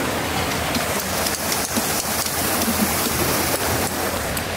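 Steady hiss of water with light, scattered pattering clicks.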